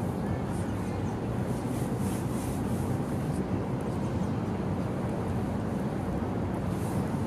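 Steady city street ambience: a low, continuous rumble of traffic.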